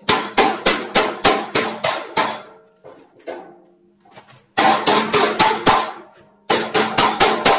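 Hammer rapidly beating a steel boxing plate against a Jeep frame rail to roll a bend into it, about five blows a second, with the plate ringing between blows. The blows come in three runs, with a pause after about two and a half seconds and a short one near the end.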